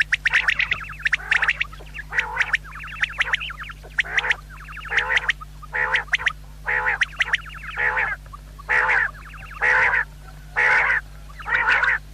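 Common quail calling over and over: short calls, each a quick run of pulses, repeated roughly once a second.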